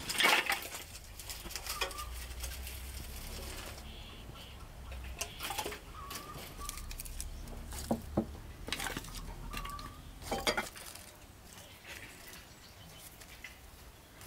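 Split wood kindling knocking and clattering as it is stacked into the firebox of a sheet-metal wood stove, with a scattering of sharp wood-on-metal knocks through the first ten seconds or so.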